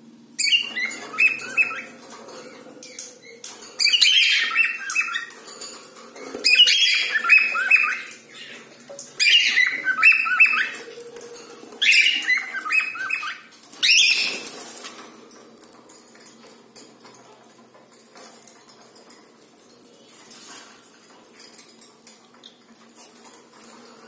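Cockatiels calling in a run of about six chirping, squawking bursts, each a second or two long, then falling quiet for the last several seconds.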